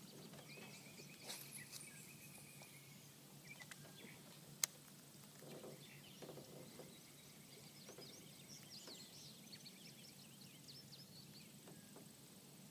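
Faint birds chirping and an insect trilling, with one sharp click a little over four seconds in.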